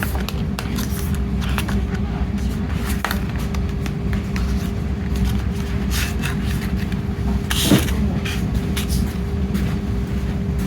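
Steady low rumble with a faint constant hum, under scattered light clicks and rustles from a CD and Blu-ray package being handled. A louder brief scrape or crinkle comes about three-quarters of the way through.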